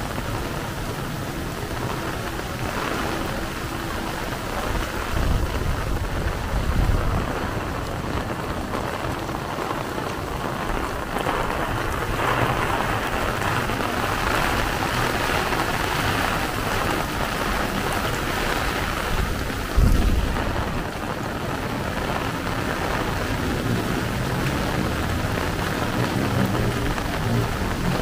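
Heavy rain falling steadily, a dense even hiss, with low rumbling swells a few seconds in and a sudden loud low thump about two-thirds of the way through.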